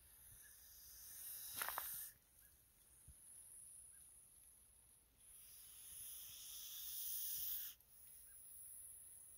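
Bull snake hissing defensively at a cat: a series of faint, long, airy hisses, each about two seconds and each cutting off sharply, with a few clicks about two seconds in.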